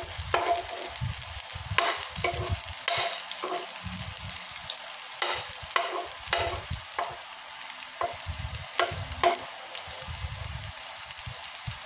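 Minced garlic sizzling in a little oil in a stone-coated frying pan, with a metal spoon stirring and scraping across the pan bottom in repeated irregular strokes, about one or two a second.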